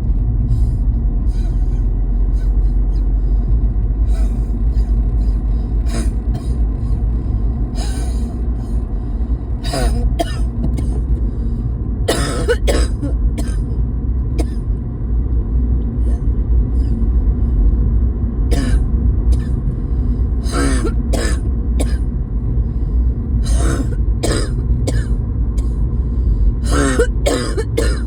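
A person coughing again and again, single coughs and quick runs of two or three, over a steady low rumble.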